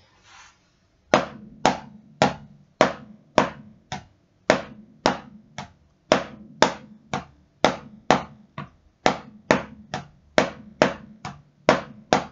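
Wooden drumsticks striking a rubber drum practice pad in slow double strokes, two strokes on each hand, with the second stroke played off the bounce of the first. The hits come evenly at about two a second, starting about a second in and getting a little quicker near the end.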